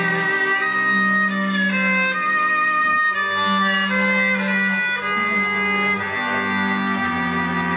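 Background music on bowed strings: slow, sustained notes, each held about a second, over a lower held line.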